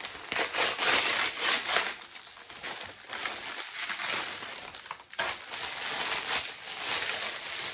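Crinkling and rustling of a delivery package as it is unwrapped by hand, with a brief lull a little after the middle.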